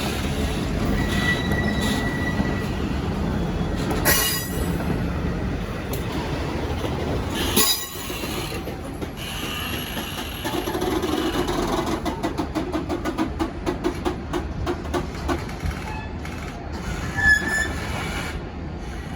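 V/Line Y-class diesel shunting locomotive moving a rake of empty N-set passenger carriages, with wheels squealing on the rails. In the second half there is a quick run of clicks as the wheels pass over rail joints.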